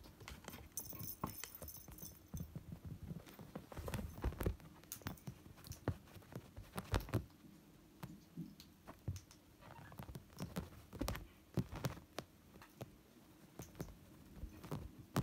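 A kitten playing with a string wand toy: irregular soft thumps, taps and scratches as it pounces and scrabbles on a fabric couch and against a cardboard box, with a brief rustle about a second in.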